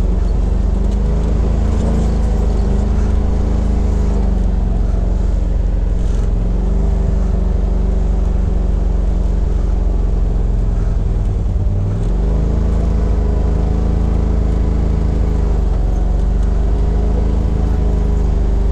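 2018 Polaris RZR XP Turbo's turbocharged twin-cylinder engine running while driving, its pitch easing off and picking up again with the throttle. There is a short drop and climb about twelve seconds in.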